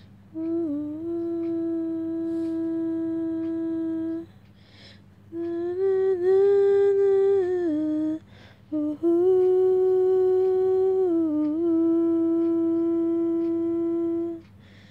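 A woman humming a slow tune in three long phrases, holding steady notes with small dips in pitch between them.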